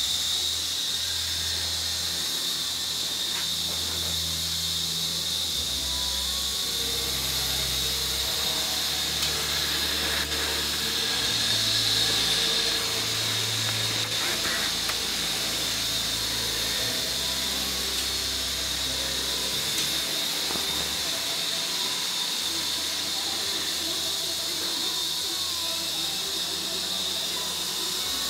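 Märklin Z-scale model trains running: a steady high-pitched whine over hiss, with a low motor hum that shifts in pitch.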